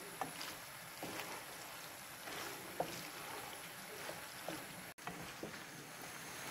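Small tube pasta and vegetables sizzling in a nonstick frying pan while a wooden spatula stirs them, with a steady hiss and scattered light scrapes and clicks against the pan.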